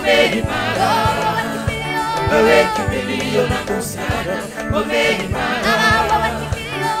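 A mixed choir singing a gospel song in full voice, with a steady drum beat and bass under the voices.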